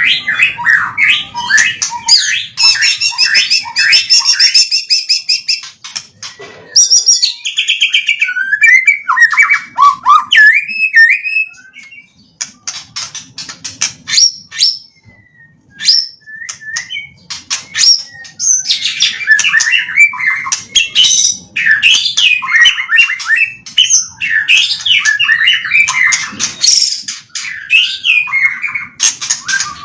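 White-rumped shama (murai batu) singing a rapid, varied song of whistles, trills and sharp clicking notes, including phrases copied from other birds. About halfway through it thins to scattered ticks and short notes for a few seconds before the full song resumes.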